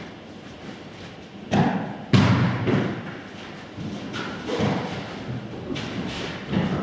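Dull thumps echoing around a hard-walled hall: two loud ones about a second and a half and two seconds in, and softer ones later.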